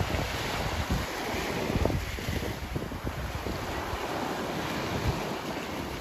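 Sea surf washing onto a beach, a steady hiss, with wind buffeting the microphone in low gusts.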